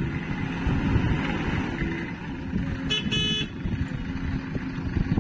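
JCB 3DX backhoe loader's diesel engine running steadily as the machine pushes its front bucket through wet soil. A short horn toot in two quick pulses sounds about three seconds in.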